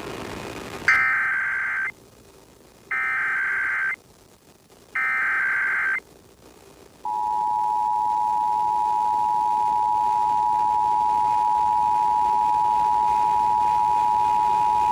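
Emergency Alert System required monthly test on FM radio. It opens with three one-second bursts of the SAME digital header, a warbling data tone, about a second apart. About seven seconds in the steady two-tone EAS attention signal (853 and 960 Hz) begins and holds.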